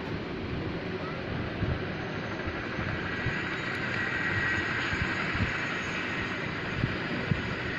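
Aircraft on a runway: a steady rumble and rush of engine and rolling noise with a few faint knocks. A faint whine comes up about halfway through.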